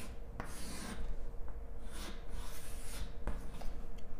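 Chalk drawing on a chalkboard: scratchy strokes as a curved outline is drawn, the longest about half a second in and two to three seconds in, with a few sharp taps of the chalk on the board.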